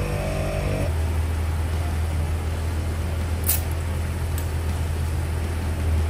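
Portable tire-inflating air compressor running with a steady low hum; about a second in its note drops and a higher whine stops as it comes off load with the tire at 35 psi. A single sharp click comes about halfway through.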